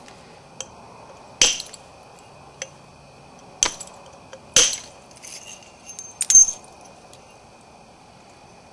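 Flintknapping percussion: a billet striking the edge of a Florida coral preform to knock off thinning flakes, four sharp glassy clinks with lighter ticks between, the last one ringing briefly.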